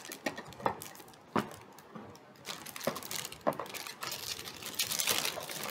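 Clear plastic packaging bag crinkling and rustling as plastic test tubes are packed back into it, with a few light clicks in the first part and denser rustling in the second half.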